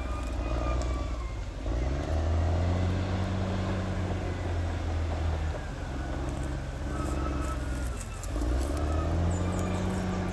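Caterpillar D6R XL bulldozer's diesel engine working, revving up about two seconds in, easing off briefly, and revving up again near the end.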